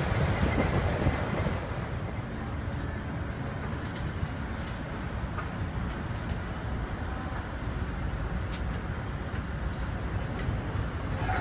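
Bucket wheel excavator working, a steady low rumble heard inside the operator's cab as the wheel digs. It is louder and hissier for the first second or so, with a few faint clicks later.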